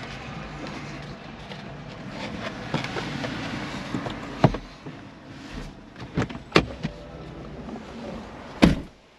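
Getting out of a BMW iX3: a few clicks and knocks from the door and its handle, then the car door shut with a solid thud near the end, after which it goes much quieter.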